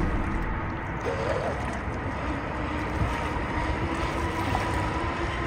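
Radio-controlled model boat running on the water: a faint steady whine from its brushless electric motor over a hiss of wind and water.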